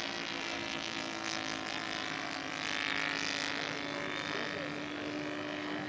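Radio-controlled scale model airplane's engine running steadily in flight, a droning buzz at one pitch that swells slightly about three seconds in.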